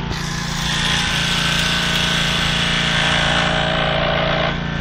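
A power rescue tool working on an overturned car: a loud, steady grinding noise that starts suddenly and cuts off after about four and a half seconds, over the steady hum of a small engine running.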